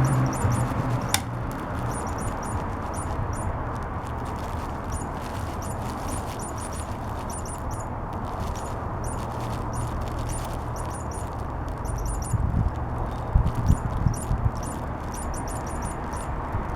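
Short, very high-pitched chirps in quick runs, repeating throughout over a steady low hum, with a few low thumps about three-quarters of the way through.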